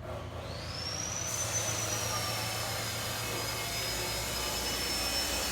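A power tool's motor spins up to a high steady whine over a rushing noise, rising in pitch over about the first second and then holding.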